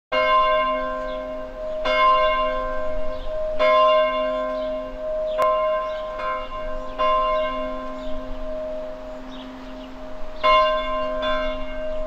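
A church bell tolling, struck seven times with its hum ringing on between strokes, a longer pause coming before the last two. Birds chirp faintly in the background.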